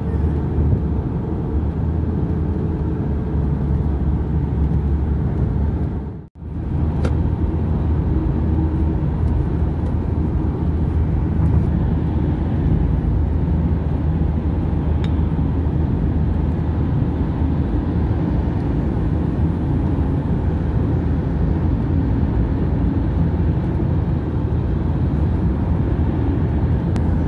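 Steady low rumble of road and tyre noise heard from inside a car cruising on a highway, with a brief dropout about six seconds in.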